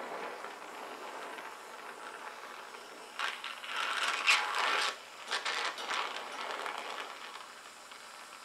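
Oxy-fuel gas torch flame hissing as it heats the corner of a sheet-steel guard for bending. Between about three and six seconds in, the hiss comes in louder, rough bursts with crackling ticks.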